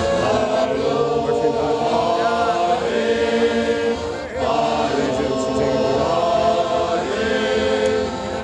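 Men's shanty choir singing a sea shanty in unison, with accordion accompaniment.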